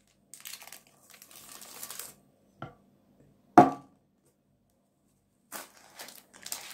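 Baking paper crinkling and rustling as a sponge cake lined with it is turned out of a glass baking dish. A small knock comes at about two and a half seconds and a louder, sharp knock about a second later, and the paper rustles again near the end.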